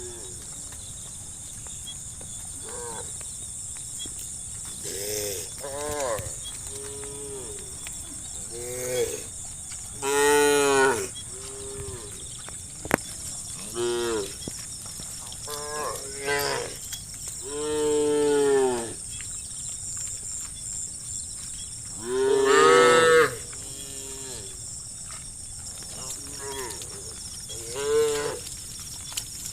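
Cattle mooing again and again, one call after another from several animals, the longest and loudest about ten, eighteen and twenty-two seconds in, over a steady high hiss.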